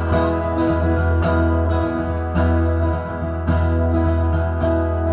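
Acoustic guitar strummed in a steady rhythm, about two strokes a second, playing a song's instrumental intro before the vocal comes in.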